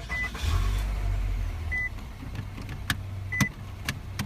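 Car warning chime beeping, short single tones repeating about every second and a half, with a low rumble early on and a few sharp clicks.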